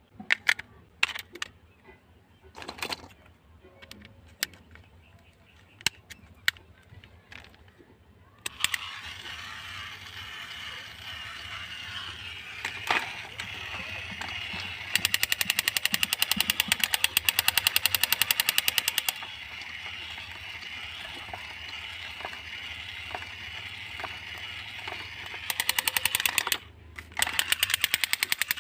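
Handling clicks and knocks, then a small toy motor starts up and runs with a steady whir, broken twice by bursts of rapid, machine-gun-like clattering.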